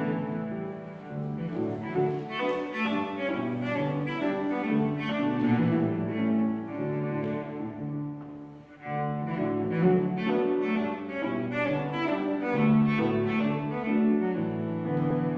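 Cello playing a melody, accompanied on grand piano. The phrase breaks off briefly about nine seconds in, then the music resumes.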